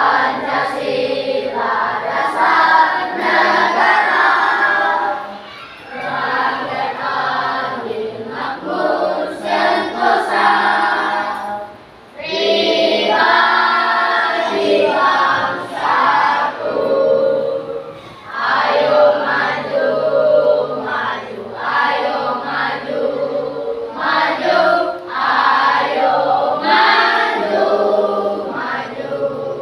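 A class of schoolchildren singing together as a group, in phrases with short pauses for breath.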